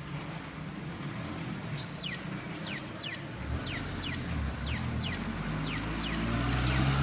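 Pedestrian crossing signal chirping: short falling chirps in pairs, about one pair a second, starting about two seconds in. Road traffic rumbles underneath, growing louder from about halfway through as a vehicle comes closer.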